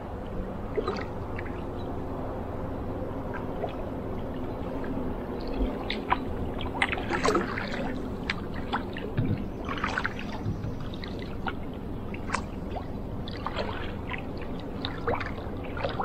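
Double-bladed paddle strokes on calm river water, with water splashing and dripping off the blades in many small, irregular splashes, over a steady low hum.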